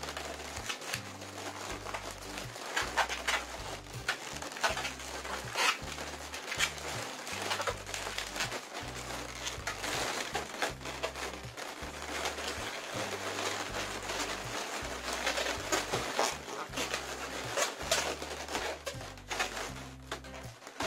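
Latex modelling balloons being twisted and handled while a pinch twist is made, giving irregular rubbing and crinkling noises. Background music with a stepping bass line plays throughout.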